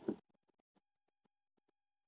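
A short dull knock right at the start, then a few faint small clicks, as a metal spoon and knife work into a baked potato on a plate. A faint steady tone runs underneath.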